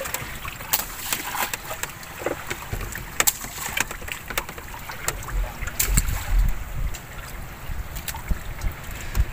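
Small boat on rough sea: wind on the microphone over a steady wash of water noise, broken by frequent sharp knocks and splashes. A low rumble swells a little past the middle.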